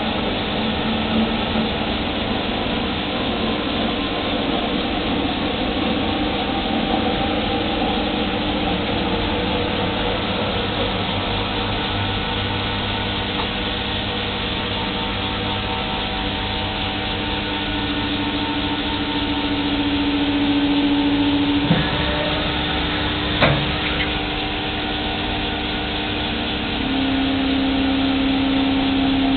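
Litz LV1100 vertical milling machine running with a steady mechanical whir and several steady tones. A stronger hum comes in twice in the second half, and there are two sharp knocks about a second and a half apart.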